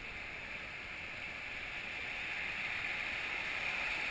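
Whitewater rapid rushing as a raft drifts toward it: a steady hiss of moving water that grows slightly louder toward the end.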